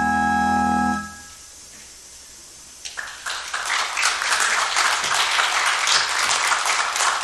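Charles Viner & Son pipe organ holding the final chord of a piece, released about a second in and dying away in the church's reverberation. After a short hush, applause begins about three seconds in and continues.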